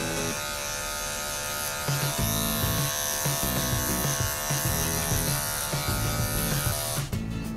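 Cordless electric dog clippers running steadily as they shave a poodle's belly fur, cutting off near the end.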